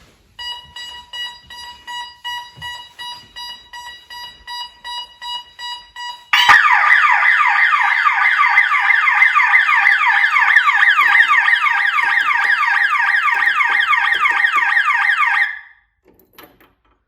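ADE Technic alarm system going off on entry: the panel sounds a pulsed entry warning tone, about three beeps a second, as the entry time runs out with the system left unset. About six seconds in, the full alarm starts, a loud fast-sweeping siren, which cuts off sharply about nine seconds later.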